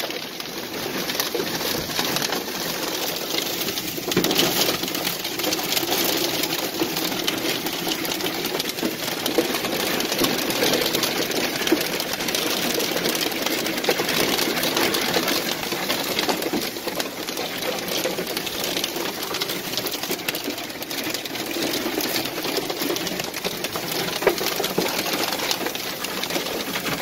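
Hail and heavy rain pelting a vehicle: a dense, continuous rattle of small impacts over a steady rushing hiss, swelling a little about four seconds in.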